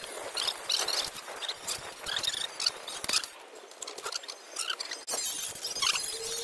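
Concrete blocks and hand tools knocking and clinking as blocks are set on hard soil, a quick run of short sharp clicks and scrapes; about five seconds in, a shovel scrapes through dirt and gravel.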